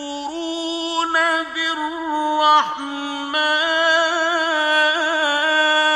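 Male voice chanting Quranic recitation in the melodic mujawwad style, drawing out one word in long held notes. The pitch wavers in ornaments through the middle and settles into a sustained note near the end.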